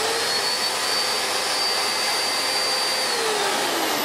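Miele S7 upright vacuum cleaner's motor running at full speed with a steady high whine. From about three seconds in it winds down, its pitch falling as it slows.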